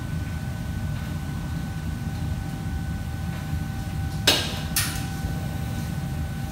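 Steady low hum of kitchen machinery, with two sharp clatters about half a second apart a little past the middle.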